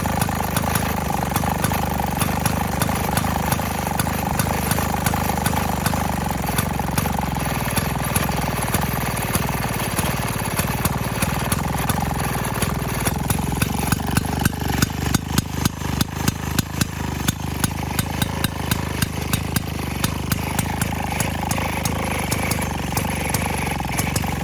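1928 Maytag single-cylinder two-stroke gasoline washing-machine engine running steadily with a fast, even popping beat. About halfway through, its firing turns into sharper, louder, more separate pops for several seconds, then evens out again.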